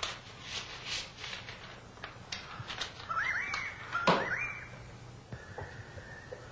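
Paper rustling as sheets are handled at a desk, with a sharp tap about four seconds in. Short whistle-like calls rise in pitch and hold, about three and four seconds in, followed by a steadier high tone near the end.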